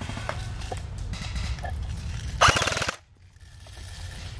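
Airsoft gun firing one short full-auto burst of about half a second, a rapid even rattle of shots close to the microphone, about two and a half seconds in, over a low rumble of wind and movement.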